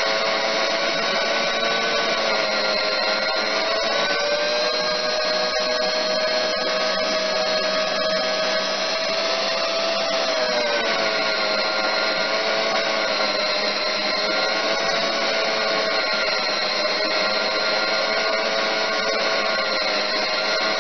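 Tool post grinder running on a lathe, its stone grinding a concave into the workpiece. A steady, loud motor whine with several tones that sags slightly in pitch twice.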